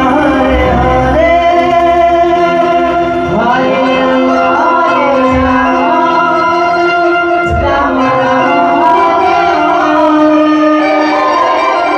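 Hindu devotional bhajan kirtan: a man sings a melody with long, sliding notes, over steady sustained notes from an electronic keyboard. There are a couple of low thumps partway through.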